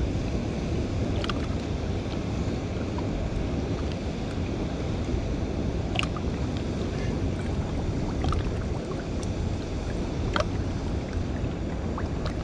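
Steady low rush of wind buffeting the microphone over moving water, with a few faint short clicks scattered through it.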